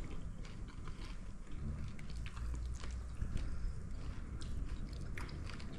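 A person chewing a mouthful of cooked mopane worms and pap, with scattered small clicks from the mouth.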